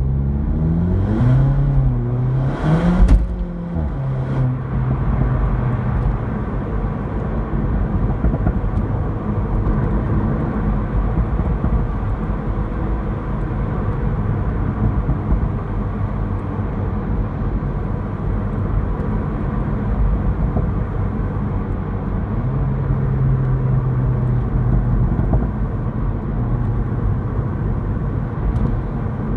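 Seat Leon Cupra 290's 2.0 TSI turbocharged four-cylinder through its standard exhaust with petrol particulate filter: revs rise and fall with a few sharp pops and bangs on the overrun in the first four seconds. It then runs steadily, the engine note shifting in pitch a couple of times near the end.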